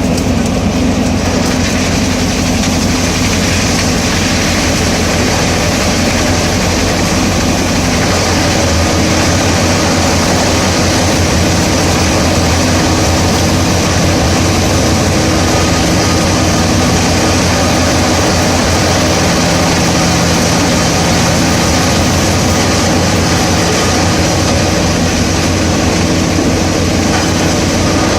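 Pezzolato PTH 900 M drum wood chipper running steadily, its IVECO C10ENTX diesel engine and spinning drum making a loud, even machine noise.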